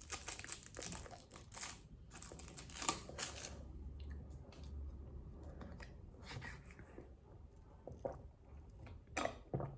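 Plastic packaging being handled, crinkling and tearing in quick crackly bursts for the first few seconds, then only a few faint clicks.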